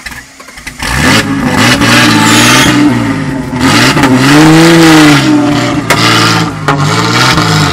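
Off-road trial vehicle's engine revving hard under load as it pulls through deep mud, its pitch rising and falling in long surges. It comes in loud suddenly about a second in.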